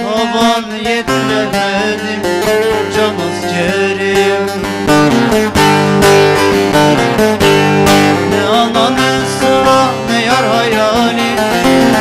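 Bağlama (long-necked Turkish saz) played solo: a quick melody of plucked and strummed notes.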